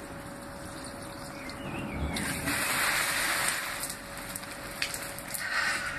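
Water from a stone pillar drinking fountain's tap splashing onto the fountain top, swelling about two seconds in and loudest for about a second and a half, with a few short clicks near the end.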